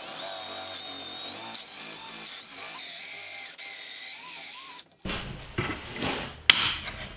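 Cordless drill boring a 3/8-inch hole into a hardwood chair rail: a steady motor whine that shifts in pitch a few times, then stops abruptly about five seconds in. A few short knocks and handling noises follow.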